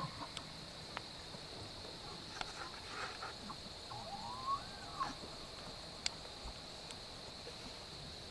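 Quiet meadow ambience with a steady high hiss and a few faint clicks. About four seconds in, a short faint whistle rises and then falls: a distant bull elk bugling.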